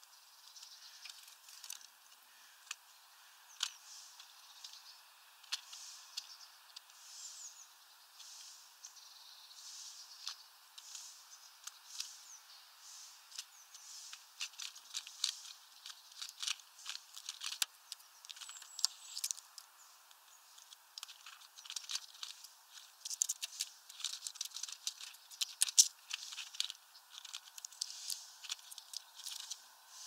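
Irregular light clicks and taps, busier and louder in the second half, over soft high-pitched rustling.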